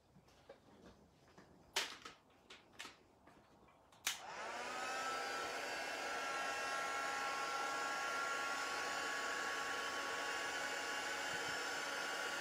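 A few light handling knocks, then about four seconds in a heat embossing tool clicks on and its fan spins up to a steady whir with a hum. It is blowing hot air to melt embossing powder.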